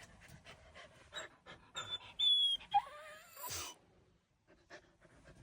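Samoyed puppy panting softly, then about two seconds in a long yawn with a high squeaky whine that slides down in pitch and ends in a breathy exhale.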